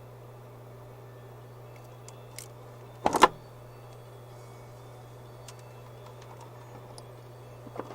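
Tools and wire being handled on a soldering workbench: a few light clicks and one loud, short clatter about three seconds in, over a steady low hum.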